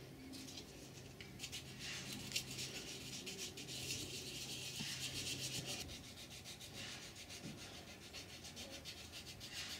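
Sandpaper rubbed by hand over a small wooden Tau cross blank in quick back-and-forth strokes, smoothing and rounding its rough sawn edges.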